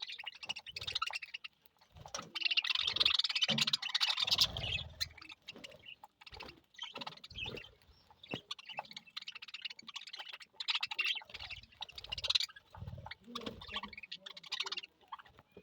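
Budgerigars chattering and chirping in quick, irregular runs of high warbling notes, busiest a couple of seconds in, with occasional low thumps underneath.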